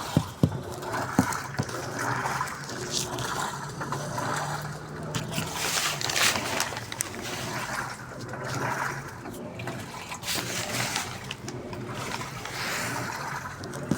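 Water sloshing and swishing inside a Daewoo washing machine's tub, in swells every two seconds or so, with a few sharp clicks near the start.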